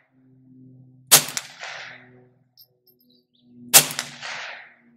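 Two shots from a Faxon FX22 semi-automatic .22 LR rifle firing high-velocity rounds, about two and a half seconds apart, each trailing off in a short echo.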